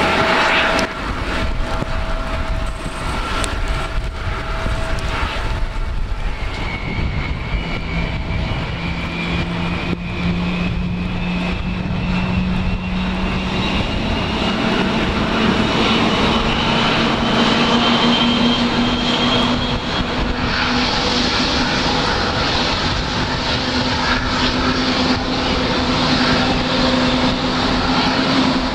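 Boeing 777-200 jet engine spooling up during start, heard as a whine rising slowly in pitch for about fifteen seconds and then levelling off, over a steady broad rumble.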